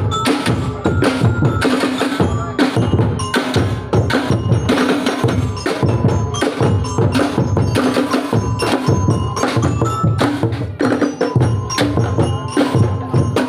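Street percussion group playing a fast, steady beat on wooden knockers and drums, including a drum made from a yellow cylindrical container, with some ringing pitched notes over the strikes.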